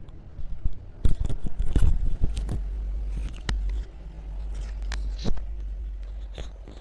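Handling noise from a clip-on lapel microphone being adjusted on a shirt collar: cloth rubbing and scraping right on the mic, with scattered sharp knocks and a low rumble.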